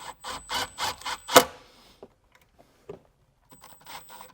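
A quick run of light metallic clicks and clinks, about four a second, from small hardware being handled: a self-tapping screw and the ground wire's terminal being readied. Near the end of the run comes one sharper click, then only a few faint ticks.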